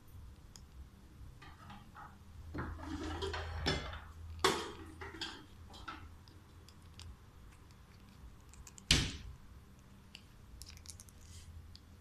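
Alexandrine parakeet biting and pushing a blue plastic cap on a tiled floor: scattered plastic clicks, scraping and clatter, with a sharp knock a little after four seconds and a louder knock about nine seconds in.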